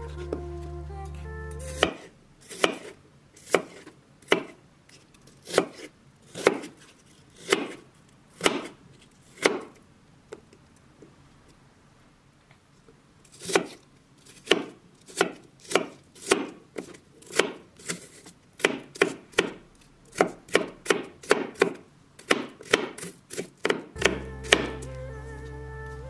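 Kitchen knife chopping apple into small pieces on a wooden cutting board. The first cuts come about one a second, then stop for a few seconds, then come quicker, about two a second.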